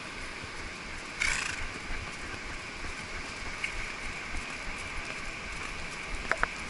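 Horses' hooves on beach sand, muffled under a steady rushing noise from the surf. A brief loud rustling burst comes about a second in, and two small sharp clicks near the end.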